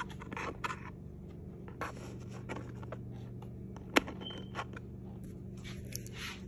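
Handling noise from a phone being moved and set in place: scattered rustles and light taps, with one sharp click about four seconds in, over a steady low hum.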